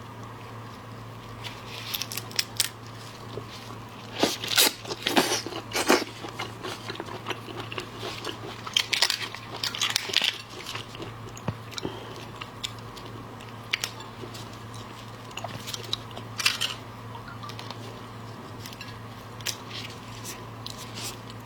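A person biting and chewing crunchy food close to the microphone: irregular crunches and crackles, heaviest in clusters around 4 to 6 seconds in and again around 9 to 10 seconds in, with a steady low electrical hum underneath.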